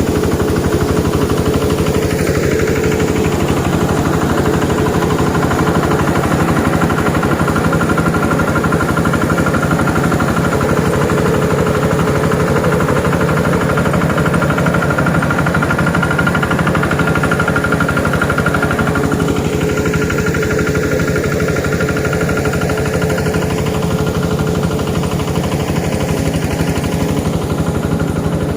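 Engine of a Quick QH 11 mini rice harvester running steadily and loudly, with a fast even pulsing beat.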